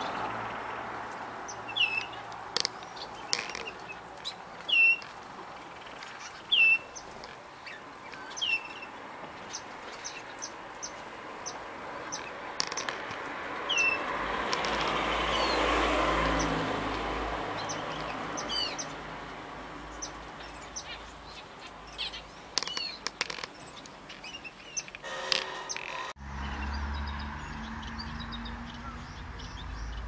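Small aviary finches and canaries chirping: short, clipped calls repeating every second or two, with scattered clicks. A flurry of wing flapping comes near the middle as birds take off. A steady low hum takes over near the end.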